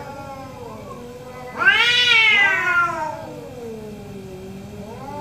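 Two orange cats yowling at each other in a standoff, the drawn-out threat caterwauling that comes before a cat fight. Long, wavering moans, with a much louder, higher yowl about a second and a half in that rises and then falls back into a low moan.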